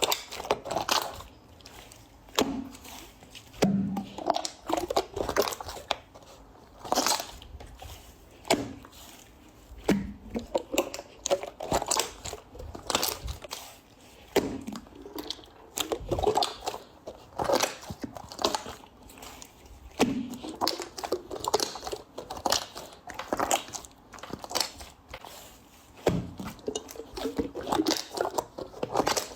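Slime being squeezed and poked by hand: irregular wet squelches and crackly pops, one every second or so.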